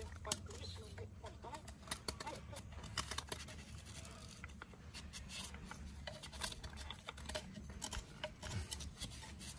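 Knife blade shaving and scraping a bamboo tube being carved into a T'rưng pipe: irregular short scrapes and clicks.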